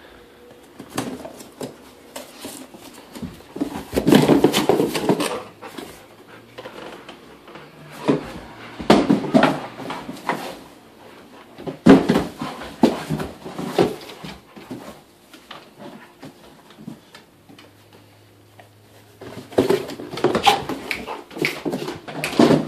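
A golden retriever playing with a cardboard shipping box, pawing, nosing and knocking it about: about five bursts of scraping, rustling and knocking with quieter gaps between them.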